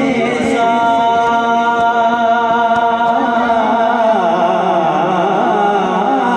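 A man singing a naat into a microphone: a long held note, then wavering, ornamented notes from about four seconds in.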